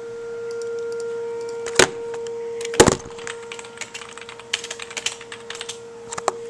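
Tornado warning siren holding a steady tone in the background. Over it come two sharp knocks, about two and three seconds in, then a run of light clicks and taps as equipment is handled and switched off.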